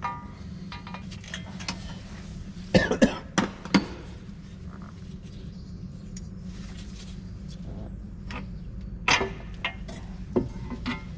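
Sharp metallic clinks and knocks of tools and metal parts as a filter is worked out of a tractor, a cluster of them about three seconds in and a few more near the end, over a steady low hum.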